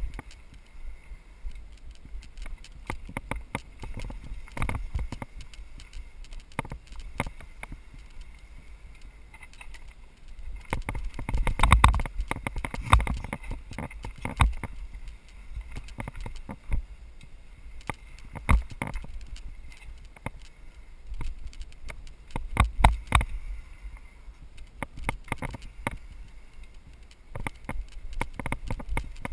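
Mountain bike riding down a bumpy grass trail, heard from a helmet-mounted camera: a run of irregular knocks and rattles over a low wind rumble, heaviest about twelve seconds in and again around twenty-three seconds.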